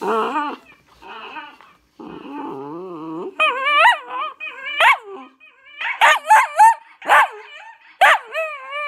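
Small black-and-tan dog howling and yipping into a handheld microphone: high, wavering cries, turning into a run of short yelps about six seconds in.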